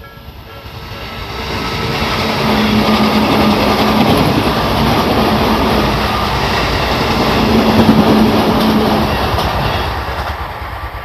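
Tobu Tojo Line electric train passing through a level crossing, growing louder over the first couple of seconds, staying loud, then fading near the end. The crossing's Nikko-type (Tobu sound B) warning bell, a repeating chime of about two strokes a second, is heard at the start and again faintly as the train fades.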